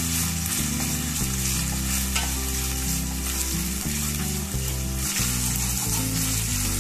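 Chopped onions and ginger-garlic paste sizzling steadily in hot oil in a pressure cooker pan, stirred with a wooden spatula. They are being fried until the raw smell of the ginger-garlic is gone.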